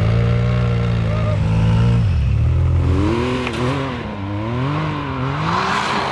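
Side-by-side UTV engines in a snow hill climb. First an engine holds a steady high note, which drops off about two seconds in. Then another machine's engine revs up and down as it climbs, with a hiss of snow spray from the tyres near the end.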